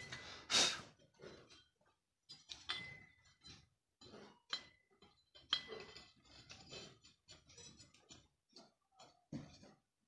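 Faint, scattered clicks and scrapes of metal parts being handled as a mixer grinder motor's end bracket, with a new bush, is fitted onto the armature shaft, with a couple of short metallic tings.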